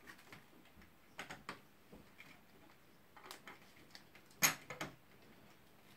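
Light clicks and knocks of a dual D5 pump unit and its mounting brackets being handled and set on a desk, a few scattered taps with the sharpest click about four and a half seconds in.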